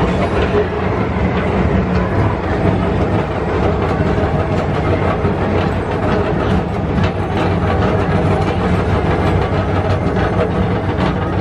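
PeopleMover ride car rolling along its elevated track, heard from on board: a steady low rumble with light clicks from the track.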